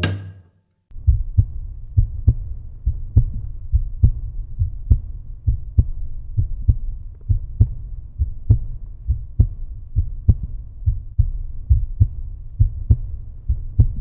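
Outro music: a heavy low beat about twice a second over a steady bass line, starting about a second in after a short pitched note cuts off.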